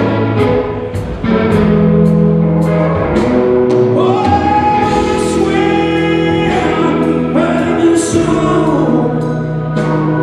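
Live rock band playing a slow gospel-style ballad, with backing singers holding long notes over a steady drum beat.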